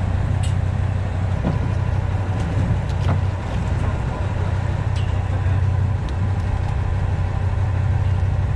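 Charter boat's engine running steadily, a constant low drone, with a few light clicks over it.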